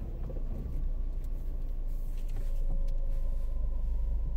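A car being driven: a steady low rumble of engine and road noise, with a faint steady hum that comes up slightly after about two and a half seconds.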